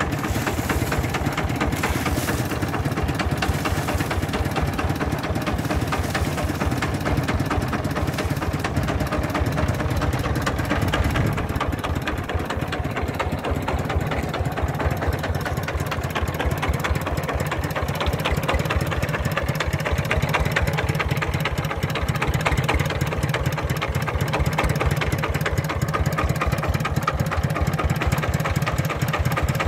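Old diesel engine of a mobile rice-milling tricycle running steadily, with the even, thudding 'ledok' knock of an old diesel's exhaust.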